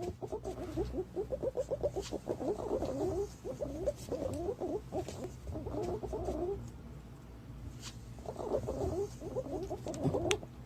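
Green pigeons calling: runs of quick, low, gurgling notes that overlap densely, pausing briefly past the middle and then starting up again. This is the kind of recording played as a lure for green pigeons.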